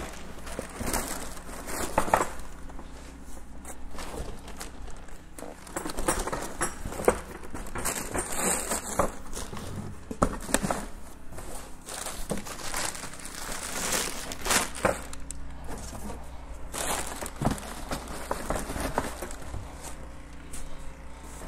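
Packing paper crinkling and the vinyl soft-top windows rustling as they are folded and pressed into a cardboard box, in irregular crackly bursts.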